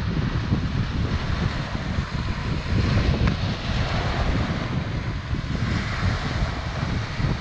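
Wind buffeting the microphone over waves breaking on a rocky shore: a steady, rumbling rush of noise.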